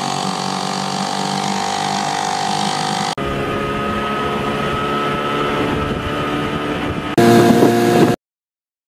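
Small outboard motors running under way, heard as three short clips one after another, each a steady engine note; the sound cuts off suddenly near the end.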